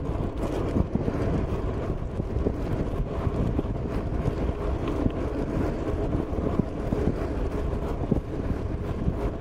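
Wind buffeting a handlebar-mounted GoPro's microphone over the steady rumble of a Canyon Grizl gravel bike's tyres rolling fast on a paved lane, with many small knocks from the road surface.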